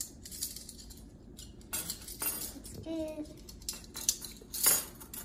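A ring of metal measuring spoons jangling and clinking together as they are handled, in short irregular clatters; the loudest jangle comes about four and a half seconds in.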